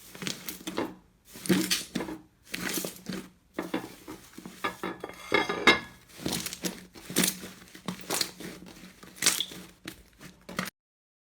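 Slime being squeezed and pressed by hand, a string of crackling, squishing bursts about once a second that cuts off abruptly near the end.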